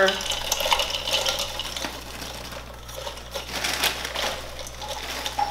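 Crinkly snack bag rustling as Flamin' Hot Cheetos are poured out, the crunchy snacks falling into the plastic bowl of a small food chopper with many small ticks and clicks.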